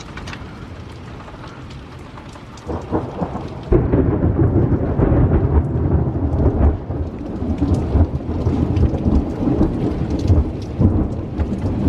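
Thunder: after a few seconds of quieter storm noise, a loud, uneven low rumble breaks in about four seconds in and keeps rolling, following a close lightning flash.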